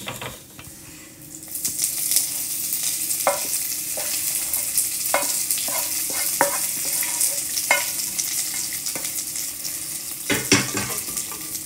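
Hot fried-coconut tempering in coconut oil sizzling steadily as it is scraped from a pan onto moist pumpkin-and-cowpea curry in a clay pot. The spatula scrapes the pan about once a second, and there is a knock near the end.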